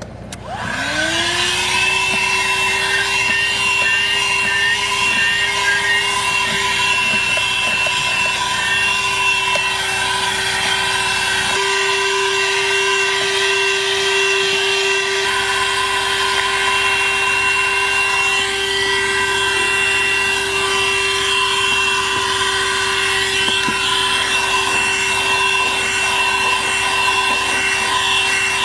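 ThisWorx 12-volt corded handheld car vacuum switched on about half a second in: its motor spins up with a rising whine, then runs steadily with a high whine. For a few seconds around the middle the low rumble drops away while the whine carries on.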